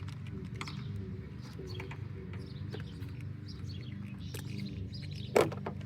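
Faint birds chirping over a steady low hum, with one sharp click about five seconds in.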